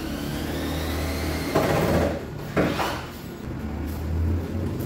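Two short scraping rubs of wood, about a second apart, as a kitchen wall cabinet is handled during fitting.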